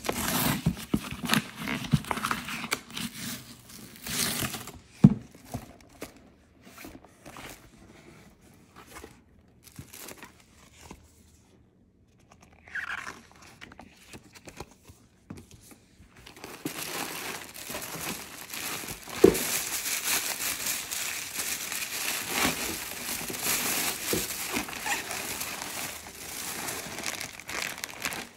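Packaging being handled during an unboxing: a sticker seal tearing off a cardboard box and paper rustling, then steady crinkling of tissue paper and plastic wrapping from about halfway through. There are sharp taps about five seconds in and again later.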